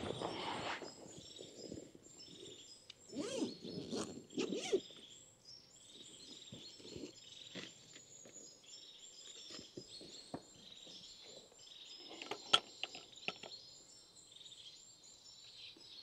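Small woodland birds chirping and calling throughout, over bouts of rustling and gear-handling noise in bracken near the start and again a few seconds in, as a backpack comes off and a tripod and camera are set up. One sharp click comes a little past the middle.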